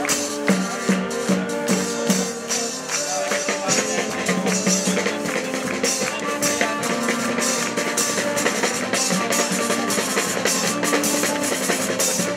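Street parade band playing: drums and tambourine-like percussion keep a steady beat under held wind-instrument notes.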